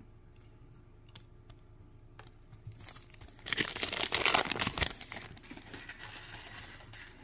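Foil wrapper of a Topps Chrome trading-card pack crinkling and tearing open, loudest for about a second and a half from about three and a half seconds in, then rustling more quietly. A few faint clicks come before it.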